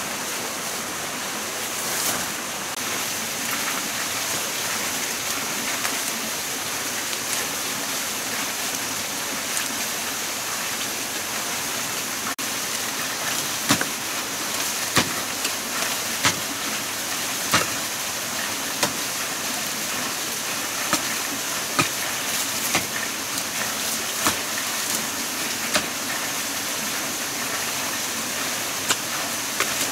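A digging tool strikes into forest soil and roots, giving sharp irregular knocks about once a second from about halfway through. Under them runs a steady rushing hiss like running water or rain.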